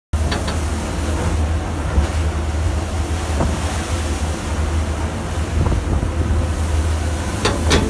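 Strong wind buffeting the microphone over a rough, heavy sea, with waves breaking and rushing along a ship's hull. A deep, steady rumble runs underneath.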